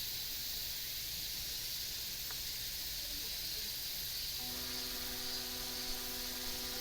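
Steady outdoor hiss, and about four and a half seconds in a faint steady hum of several held tones comes in from the outdoor public-address loudspeaker as it switches on.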